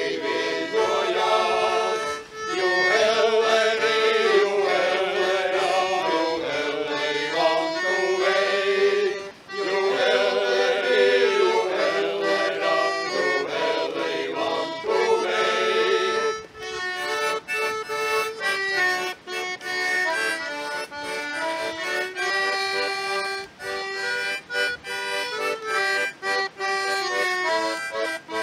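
Two diatonic button accordions playing a folk tune with men's voices singing along for about the first half; the voices drop out after about sixteen seconds and the accordions play on alone in short, separate phrases.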